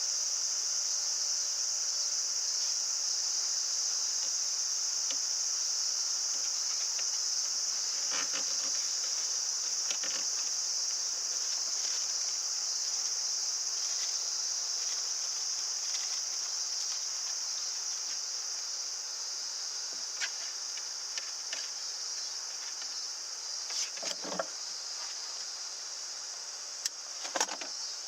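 Steady high-pitched insect chorus, with a few light clicks and knocks, most of them in the second half.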